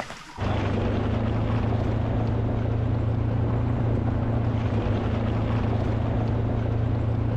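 An engine running at a steady speed: a constant, even hum that starts abruptly about half a second in and does not change.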